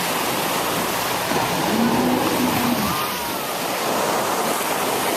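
Steady rushing noise of wind and water at the sea, with a brief wavering pitched sound about two seconds in.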